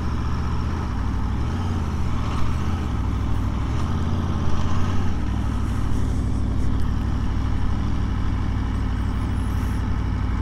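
Aprilia Tuono motorcycle engine running at low speed, its note shifting a few times as the throttle changes.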